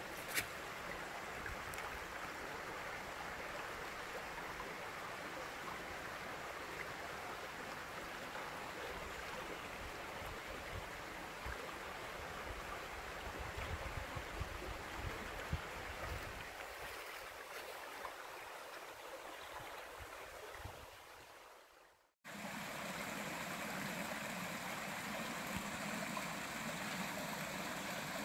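Small woodland stream running over rock in a steady rush of water. The sound fades away about three-quarters of the way through, drops out briefly, then comes back suddenly.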